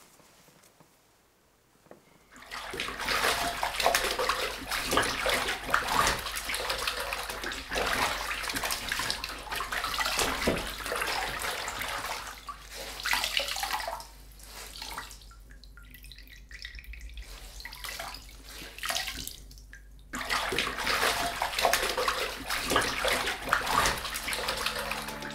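Water splashing and sloshing hard and irregularly, as something thrashes in it. It starts suddenly about two seconds in, eases off through the middle and picks up again strongly near the end.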